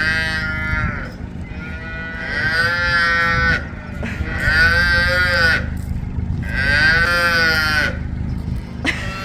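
Calves mooing: four long, drawn-out calls about a second apart, over a steady low hum.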